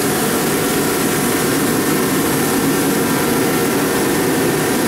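Heating and drying equipment running in a loud, steady drone that does not change.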